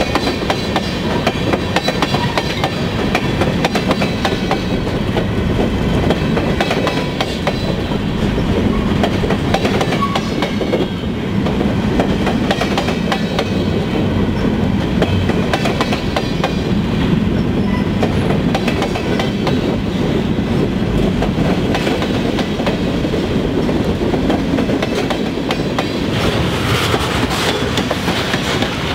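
Freight cars of a passing mixed freight train rolling by close up: a steady rumble of steel wheels on rail, with rapid clicks as the wheels cross the rail joints.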